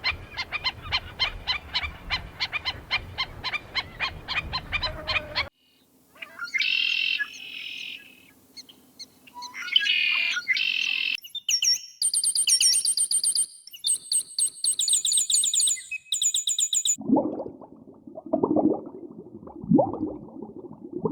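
A run of animal calls in separate cuts: a rapid pulsing trill for about five seconds, then bird calls, a burst of high repeated chirps, and lower rough calls near the end.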